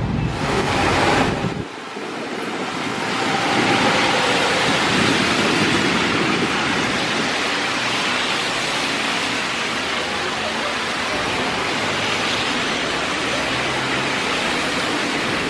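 Steady hiss of traffic on a wet road, tyres running over wet asphalt as cars and buses pass. A louder rush in the first second and a half cuts off suddenly.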